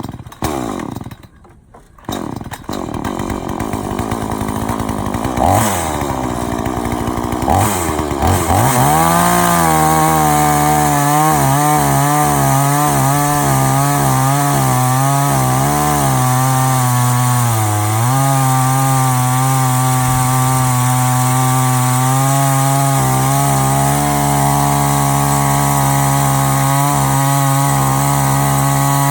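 Chainsaw on an Alaskan-style chainsaw mill. It catches in the first couple of seconds and is revved up a few times, then runs at full throttle from about eight seconds in, its pitch wavering and dipping briefly near the middle as it cuts under load.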